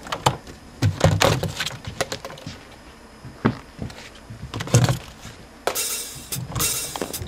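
Scattered, irregular knocks and thumps, then about three-quarters of the way in a drum kit starts up with cymbal crashes.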